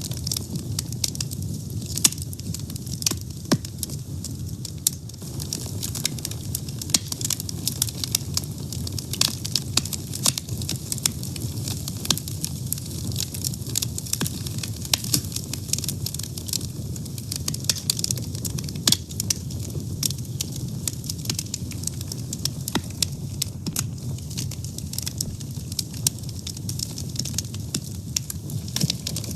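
Wood fire burning with a steady low rumble and frequent sharp, irregular crackles and pops.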